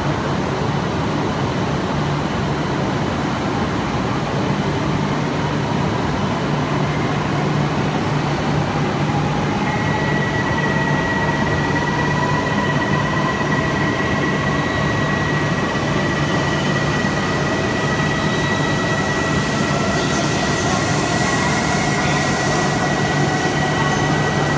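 E6/E5 Shinkansen set at the platform, starting to pull away. Its traction motors give a whine that rises slowly in pitch over a steady electrical hum. A steady high tone joins about ten seconds in.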